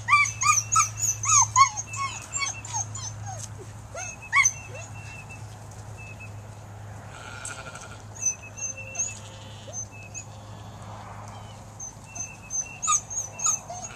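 A dog whining and yipping in quick high-pitched runs: a burst in the first two seconds, a single yelp about four seconds in, and another run near the end.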